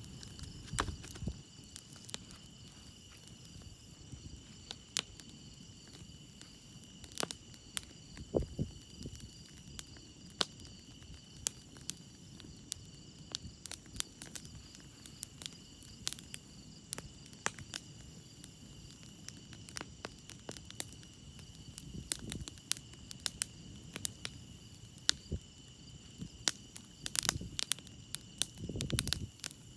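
Wood campfire crackling, with many sharp pops and snaps scattered irregularly. Crickets chirp steadily and high-pitched throughout. A few short, dull low rumbles come about 8 seconds in, around 22 seconds, and near the end.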